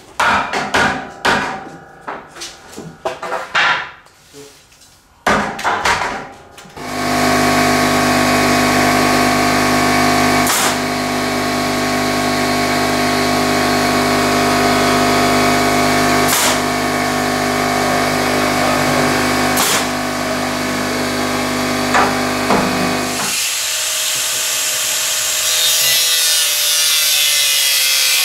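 Knocking and banging on wood for several seconds, then an electric power tool motor starts and runs steadily for about sixteen seconds, with a few sharp clicks. Near the end it gives way to a hissing noise with a slowly falling tone.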